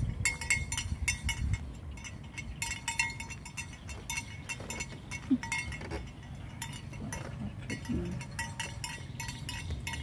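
Rapid, irregular clinking of a bell on a grazing water buffalo, with a faint ringing pitch.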